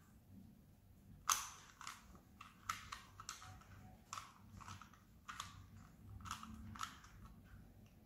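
3x3 Rubik's cube being turned by hand: irregular plastic clicks and short scraping rasps as the layers are twisted, about a dozen from a little over a second in.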